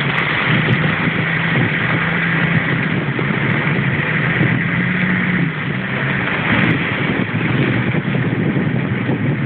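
Off-road 4x4's engine running steadily at low speed on a rough dirt track, a low even hum under a broad rushing noise from the moving vehicle; the hum turns less even after about six seconds.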